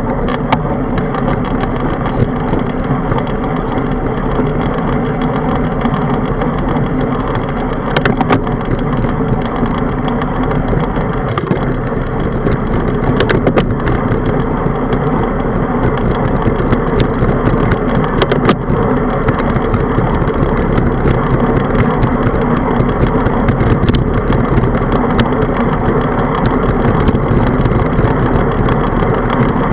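Steady rushing wind on a handlebar-mounted camera's microphone mixed with the rumble of bicycle tyres rolling on asphalt, with a few sharp knocks as the bike jolts.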